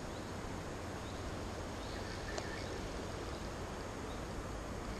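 Steady outdoor noise of the river and wind, with a few faint bird chirps and one faint click about two and a half seconds in.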